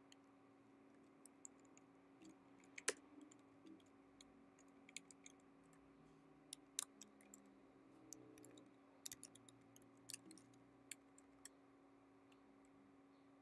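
Scattered, faint key presses on a computer keyboard, a dozen or so irregular clicks, over a faint steady hum.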